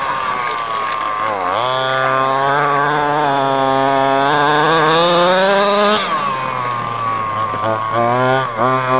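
HPI Baja 5B 1/5-scale RC buggy's small two-stroke petrol engine revving under throttle. It drops off about a second and a half in, climbs back and holds high revs for several seconds, falls back about six seconds in, then is blipped up and down a few times near the end.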